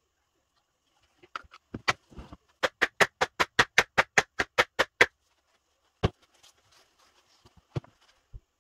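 Wooden loaf soap mold full of thick cold-process soap batter being pounded on the tabletop, sped up. A few scattered knocks lead into a fast, even run of about a dozen strikes, then a few single knocks near the end.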